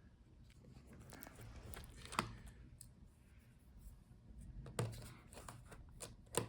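Faint handling noises of a laptop teardown: a few sharp clicks and light scraping as small tools and parts are worked inside the open laptop.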